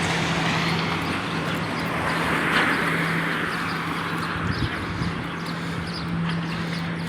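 Street ambience: a vehicle passing, swelling to its loudest about two and a half seconds in, over a steady low engine hum, with a couple of small knocks later and faint chirps near the end.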